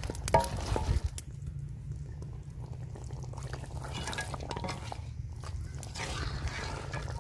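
Wooden spoon stirring beef karahi as it simmers in its gravy in a large aluminium pot, with a few knocks of the spoon against the pot in the first second, over a steady low rumble.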